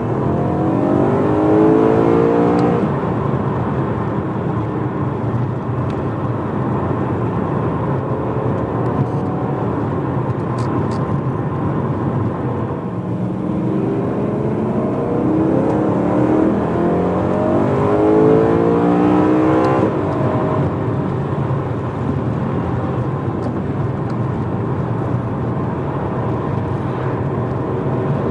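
BMW E92 M3's 4.0-litre V8, with a primary-decat X-pipe and the stock rear silencer, heard from inside the cabin. It rises in pitch under acceleration near the start, settles to a steady cruise, then accelerates again for several seconds about halfway through, with the pitch climbing in repeated sweeps, before settling back to a steady cruise.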